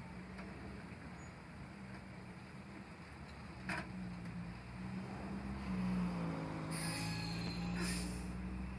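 Road traffic: cars driving past with a steady low engine hum that grows louder about two-thirds of the way through. A brief click comes just under four seconds in.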